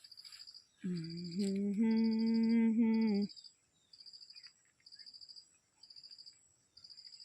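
Crickets chirping in short high trills that repeat about once a second. From about a second in, a person's voice holds a long, steady hummed note for about two seconds, stepping up slightly in pitch; it is the loudest sound.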